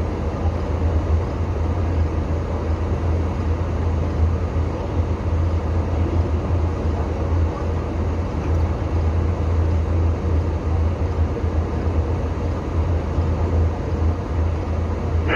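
Vehicle engine idling steadily: a constant low drone with a rushing noise over it.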